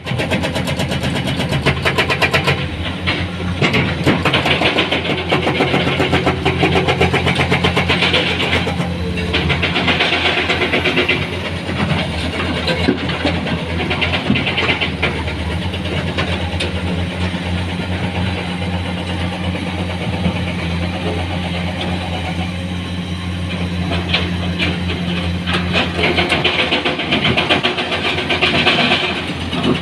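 Heavy diesel engine of working earthmoving equipment running steadily, with several louder stretches of higher-pitched hissing and rattling noise over the low engine hum.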